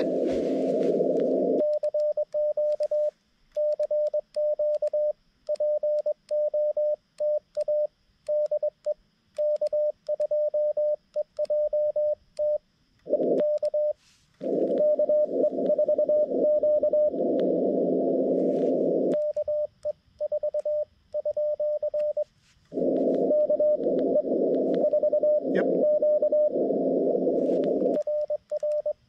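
Morse code from a Xiegu G90 transceiver: a single tone near 600 Hz keyed on and off in dits and dahs. Some stretches are the transmit sidetone as the paddle key sends, with dead silence between the elements. Others are received CW heard over a bed of band hiss through the radio's narrow filter.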